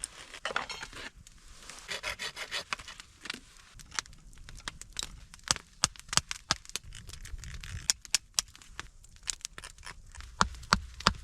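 Irregular scraping and rubbing strokes, with many sharp clicks and taps scattered through.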